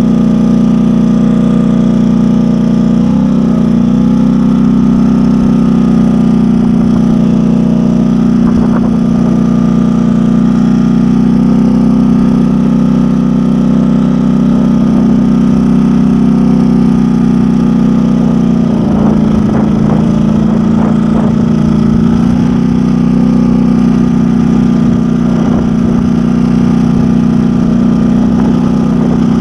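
2010 Polaris Sportsman 850 XP ATV's 850 cc twin-cylinder engine running loud and steady through an exhaust pipe that is coming loose, which makes it sound close to straight-piped.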